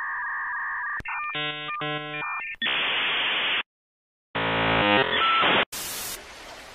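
Dial-up modem connecting over a phone line: about a second of steady tones, then a run of stepped handshake tones with a steady high whistle, then loud hiss broken by a brief dead silence. Near the end comes a quieter static hiss.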